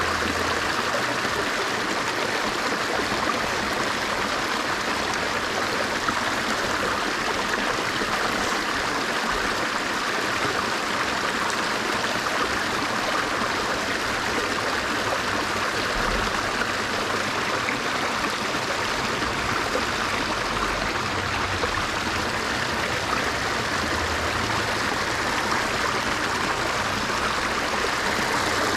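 Flowing stream, a steady even rush of water.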